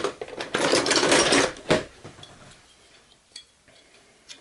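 Metal hand tools clattering and rattling as they are rummaged through, with a sharp knock partway through and a few light clinks after.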